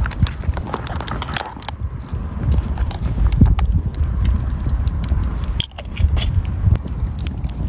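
Wood campfire crackling, with irregular sharp pops over a steady low rumble.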